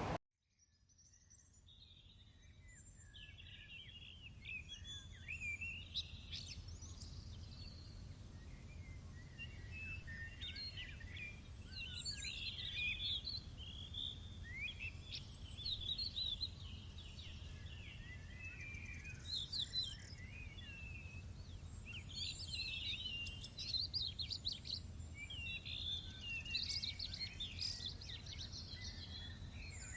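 Several small birds chirping and singing over a steady low outdoor rumble, fading in over the first few seconds.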